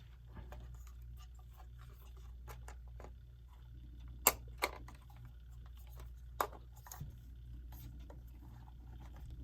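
Handling clicks and knocks as a part of a quartz clock is pressed into place: a few sharp clicks at irregular times, the loudest about four seconds in, over a steady low electrical hum.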